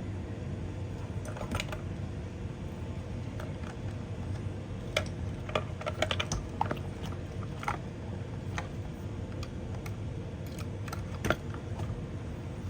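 Scattered light clicks and taps from hands handling small hard parts, irregular and a few seconds apart, with a small cluster about six seconds in and the sharpest one near the end, over a steady low hum.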